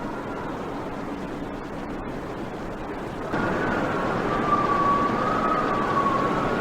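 Strong wind rushing steadily. A bit under halfway through it gets louder, and a high, wavering whistle joins it and carries on.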